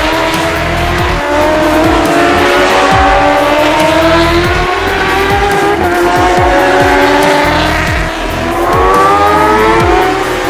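Racing superbike engines at high revs, several at once, the pitch climbing and dropping through gear changes as the bikes race through corners. Background music plays underneath.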